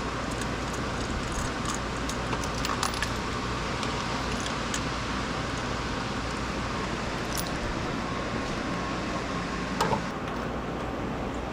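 Small metallic clicks and clinks of hand tools and parts being handled, scattered irregularly, with a slightly louder cluster about ten seconds in, over a steady background hum.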